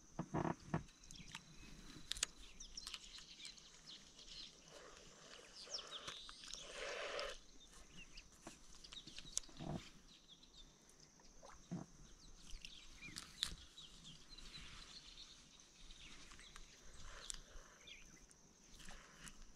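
Faint animal calls with scattered clicks and knocks.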